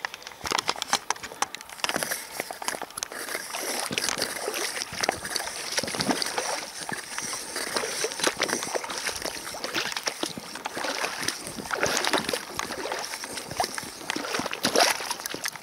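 River water sloshing and splashing, with many small clicks and ticks throughout.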